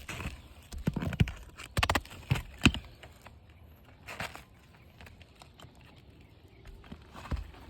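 Irregular knocks and taps of a hand tool working on asphalt roof shingles, several in the first three seconds and a couple more later.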